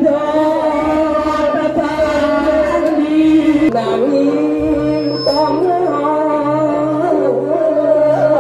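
Voices singing a slow chant with long held notes, over a steady low hum.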